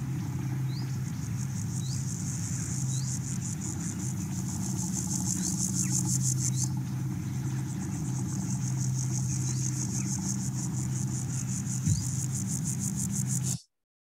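Grasshopper stridulating, rubbing its legs to make a rapid, high-pitched pulsing buzz, with a short break about halfway. A steady low hum runs beneath it, and it stops abruptly just before the end.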